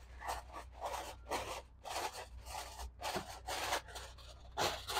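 Aluminum foil crinkling in short, irregular rustles as it is pressed and wrapped over a pan of ham.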